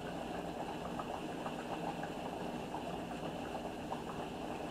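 Flour-coated roast frying in hot grease in a roasting pan: a steady sizzle with many small crackles.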